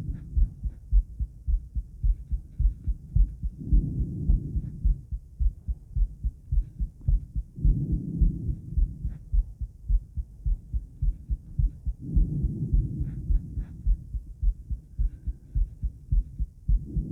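A woman's heartbeat, recorded at the chest after 50 squats while it recovers from the exertion. It is a steady run of low lub-dub thumps, and a softer swell of noise comes up about every four seconds.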